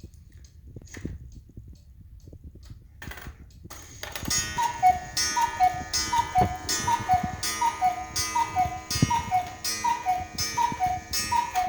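Cuckoo clock ticking with clicks from its movement. About four seconds in, the cuckoo starts calling the hour: its bellows pipes give the two-note high-low 'cuckoo' about ten times in a row, roughly one call every three-quarters of a second.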